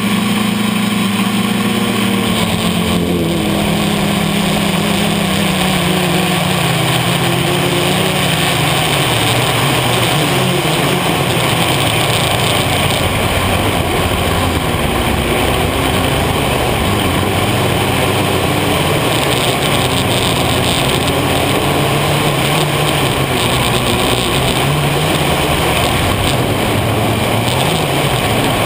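A 450 mm quadcopter's motors and propellers buzzing in flight, heard from on board. The pitch drops over the first several seconds, then wavers up and down with the throttle.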